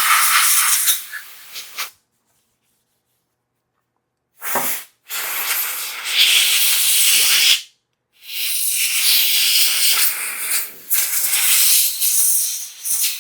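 Air blower hissing as it blows dust out of a MacBook Pro's fan and internals, in several blasts broken by sudden complete silences.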